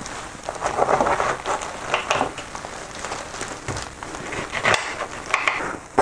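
Kitchen knife cutting through an orange and lemons: a dense run of small, wet crackles as the blade goes through peel and juicy flesh, with a couple of sharp knocks near the end.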